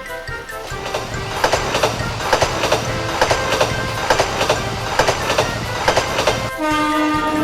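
Battery-powered Plarail toy train running on plastic track: a steady motor hum with sharp clicks at an even beat of about two a second.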